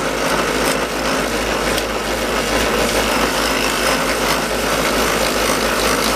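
Power tools running steadily while working aluminium plate: a drill press spinning a wheel and a Dremel saw cutting the sheet.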